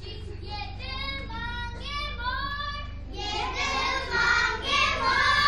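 Children singing a song, high voices holding and bending notes, louder in the second half.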